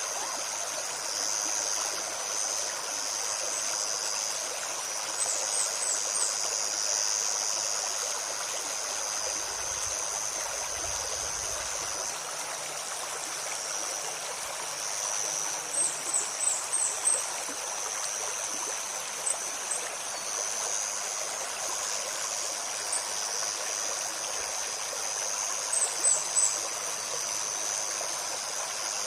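A shallow stream babbling steadily over stones. A small bird chips short high notes in quick runs of three to five, about three times.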